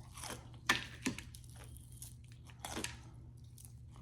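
Close-miked chewing and crunching of crispy fried food, with sharp crunches about a second in and again near three seconds, over a steady low hum.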